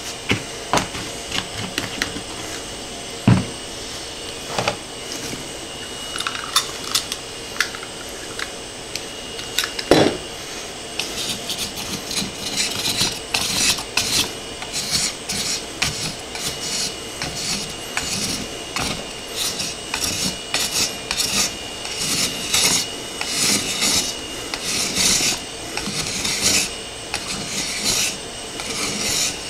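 Razor blade scraping softened glue residue off a 3D printer's metal bed plate, in short repeated strokes that run steadily through the latter two thirds, after a couple of knocks in the first third.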